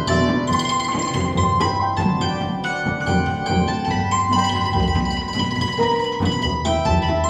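Hammered dulcimer and steel pans playing a tune together: many quick struck notes that ring on, with low bass notes underneath.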